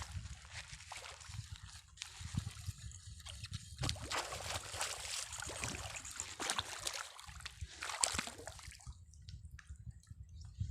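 Water splashing and trickling in irregular surges, with small drips and sloshes, easing off near the end.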